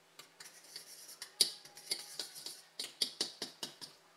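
A metal fork scraping and clicking against a mixing bowl as melted butter is worked into a flour, sugar and cinnamon streusel. It comes as a quick, irregular run of strokes, about four or five a second, with the loudest scrape about one and a half seconds in.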